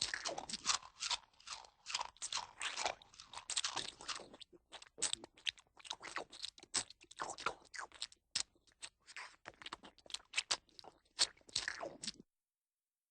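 Cartoon chewing sound effect: fast, irregular crunching bites. It ends in a falling gulp and cuts off suddenly about twelve seconds in.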